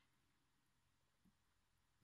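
Near silence, with one very faint short blip a little past the middle.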